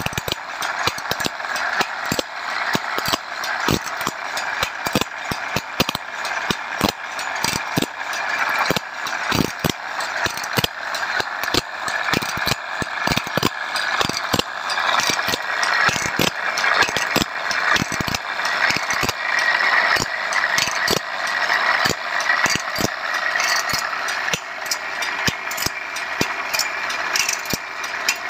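Automatic band-saw blade sharpening machine running: its abrasive wheel grinds steadily against the teeth of a wide sawmill band-saw blade, over a string of repeated clicks from the feed mechanism as it advances the blade tooth by tooth.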